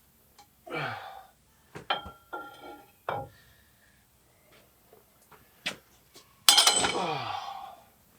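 Steel pipe wrench clanking against a backhoe hydraulic cylinder's gland nut: several sharp metal knocks with a brief ring, then a louder, longer clatter about six and a half seconds in as the wrench slips.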